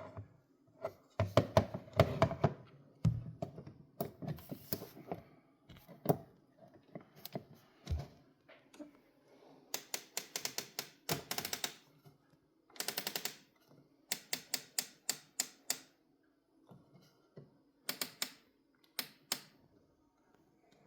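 Espresso machine parts and packaging being handled: irregular knocks and rattles, then quick runs of sharp clicks, up to about ten a second, in several bursts.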